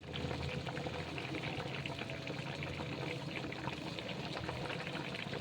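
Food cooking in a pan, a steady bubbling crackle of liquid or oil in the heat.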